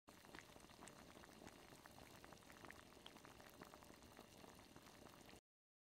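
Faint fizzing crackle made of many tiny pops, which cuts off suddenly about five seconds in.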